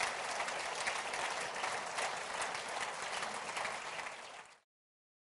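Audience applauding steadily, a dense crackle of many hands clapping, which ends abruptly near the end.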